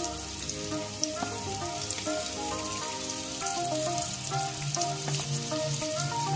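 Sliced onions sizzling in hot coconut oil in an iron wok, a steady crackle with small pops, over background music with a clear melody.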